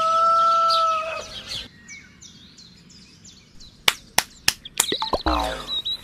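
A rooster crowing, its long held note ending about a second in, followed by faint chirps of small birds. From about four seconds, a run of sharp clicks or knocks and a low thump.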